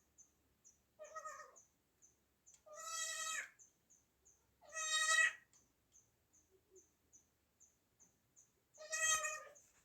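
Newborn goat kid bleating four times, each a short high call of about half a second to a second, the third the loudest. A faint high ticking repeats about three times a second behind the calls.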